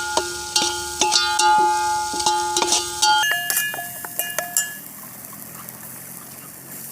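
A metal spoon knocking and scraping against a metal cooking pan while masala is stirred, with a metallic ring under the irregular clinks.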